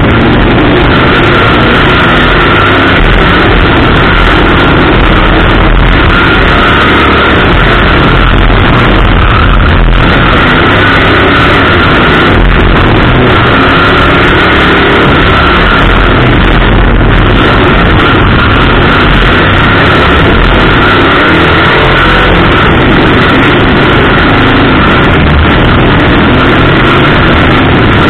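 Bump-to-pass race car's engine running at racing speed, heard from inside the car; loud and steady for the whole stretch.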